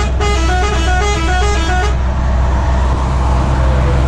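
A musical truck air horn plays a quick tune of stepped notes that ends about two seconds in. Under it runs the steady drone of a truck engine.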